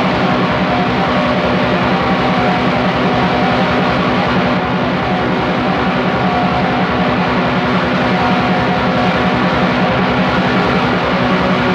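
Raw black metal played as a dense, unbroken wall of distorted guitar and drums at steady loudness, with a lo-fi demo sound that has little treble.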